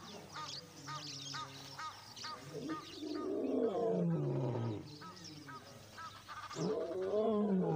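Lioness roaring: two long moaning roars, each falling in pitch, one about three seconds in and another near the end. A faint high chirp repeats about twice a second in the first half.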